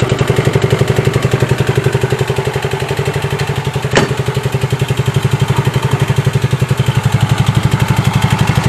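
Yamaha Fino scooter's single-cylinder four-stroke engine idling steadily just after being freed from a seizure, with a bit tappy running that the owner puts down to the top end, possibly a small end bearing. A single sharp click about four seconds in.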